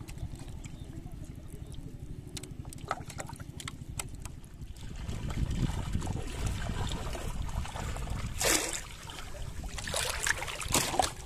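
Shallow water trickling and splashing as people wade and handle a bamboo fish trap, over a steady low rumble. Small drips and clicks at first, then louder splashes about eight and a half and ten seconds in.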